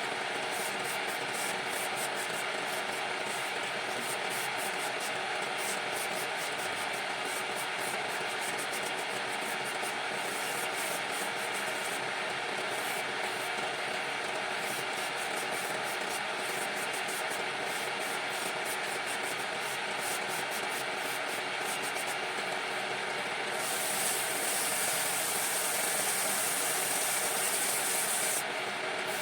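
Wood lathe running with a steady machine hum while the spinning workpiece is worked, giving a rough, scraping hiss. Near the end a louder, higher hiss comes in for about five seconds and then stops.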